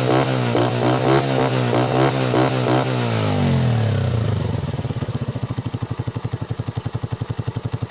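Honda TMX single-cylinder four-stroke engine running through a curved bullet-pipe muffler with its silencer insert fitted. It is held at raised revs, then the revs drop a little over three seconds in. From about halfway it settles into a steady idle with distinct, evenly spaced exhaust pulses.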